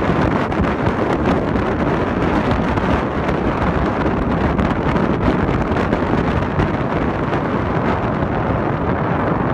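Wind buffeting the microphone: a loud, steady rush of noise.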